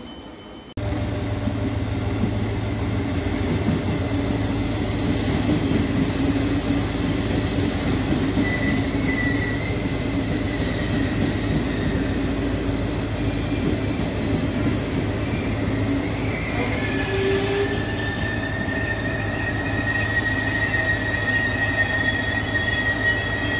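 Regional passenger train's coaches rolling past at close range with a steady low rumble. A high metallic squeal rises briefly about eight seconds in and sets in again from about sixteen seconds in, holding to the end.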